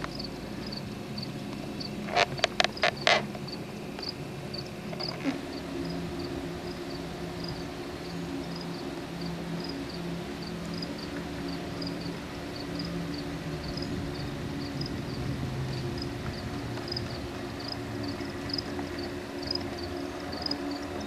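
A high chirp repeats about twice a second over a steady low motor hum. About two seconds in there is a quick run of five sharp clicks, the loudest sound here.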